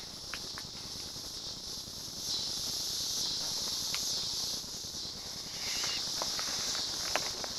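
Insect chorus, a steady high-pitched buzzing hiss that swells and eases slightly, with a few light clicks and knocks scattered through it.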